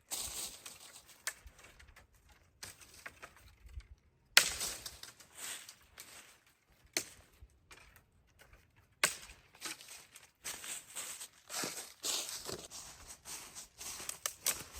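Irregular sharp knocks, about one every one to two seconds, with rustling and crunching between them, as wood and forest debris are handled.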